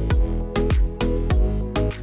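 Background music with a steady, punchy drum beat.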